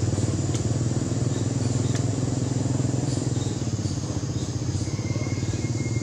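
Motorcycle engine idling steadily, a low even hum with a fast regular pulse, with faint high chirps of birds or insects above it.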